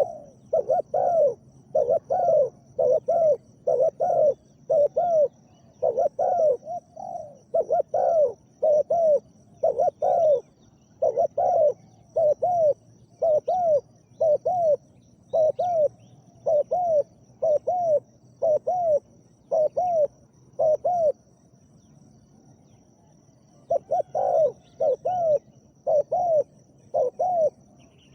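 Spotted dove cooing: a long run of deep, repeated coo notes, about two a second, with a short break about three quarters of the way through. A faint steady high insect trill runs underneath.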